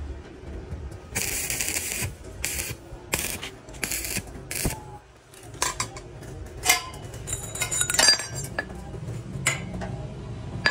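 Stick-welding tacks on a steel tube frame: a burst of arc noise just under a second long, then four shorter bursts. These are followed by several sharp metallic clinks and taps of a hammer on the steel tubes.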